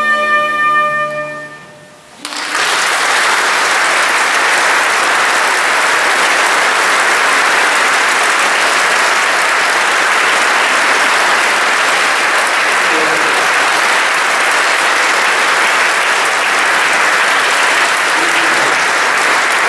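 The last held note of the trumpet and orchestra fades away in the first two seconds. Then a large audience breaks into applause, which goes on steadily for the rest of the time.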